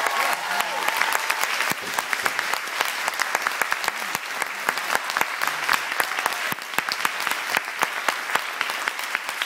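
Theatre audience applauding with dense, steady clapping. The last held sung chord of the song fades out in the first moment.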